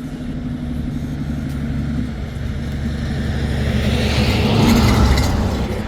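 A car driving: a steady low engine hum under road noise, which swells to a peak about five seconds in and then eases.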